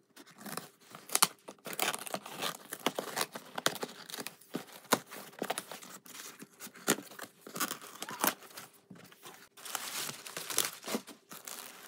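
Packing tape and cardboard of a postage box being cut with scissors and torn open, a steady run of irregular snips and rips; near the end a plastic mailing bag crinkles as it is handled.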